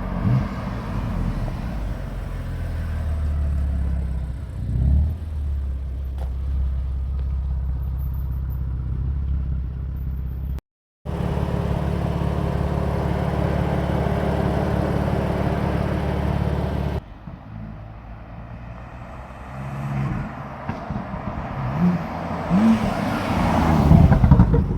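BMW M4 Convertible's twin-turbo straight-six running at steady low revs while driving, cut off briefly by total silence about 11 seconds in. It turns quieter from about 17 seconds, then grows louder again near the end with a few short rising revs.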